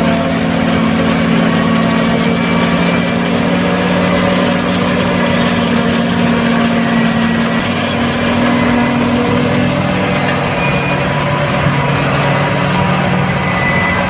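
John Deere 8200 self-propelled forage harvester running steadily under load while chopping corn, with the engine of the tractor pulling the forage wagon alongside mixed in. The engine drone shifts slightly in pitch partway through.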